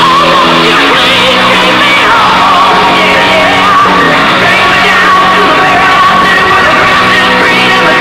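Loud music with singing voices, playing steadily without a break.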